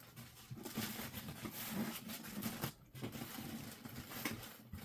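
Light rustling and small irregular knocks from hands handling a newly unboxed sewing machine and its packing materials, with a short pause a little under three seconds in.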